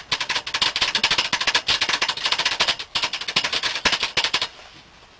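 Public payphone keypad buttons pressed in a rapid, dense clatter of clicks, stopping about four and a half seconds in.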